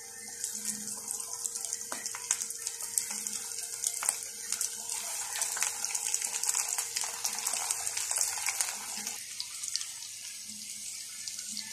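Breaded chicken nuggets deep-frying in hot oil: a steady sizzle with dense fine crackling as the pieces are added and fry.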